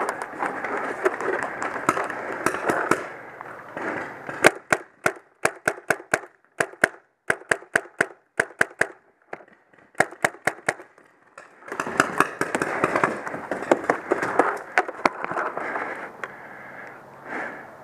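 Paintball marker firing a long string of rapid sharp shots, two to four a second with short pauses, from about four seconds in to about eleven seconds in. Before and after the shots, a rustling stretch of running and gear movement.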